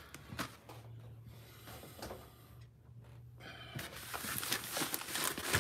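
Rolled diamond-painting canvas and its paper wrapping being handled and unrolled on a table: faint rustling and light taps that grow louder in the second half. A low steady hum runs through the first half.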